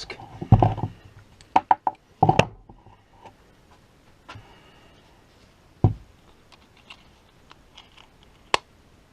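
Scattered knocks and clicks of a cordless rotary tool and its small parts being handled and set down on a bench, with no motor running.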